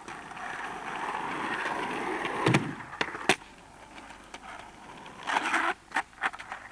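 Skateboard rolling on an asphalt road: a wheel rumble that swells over the first two seconds or so, then a few sharp clacks of the board about two and a half to three and a half seconds in, and another stretch of rolling with a couple of clicks near the end.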